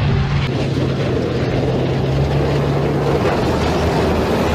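Steady low rumble of a tank engine running, with a rushing noise over it.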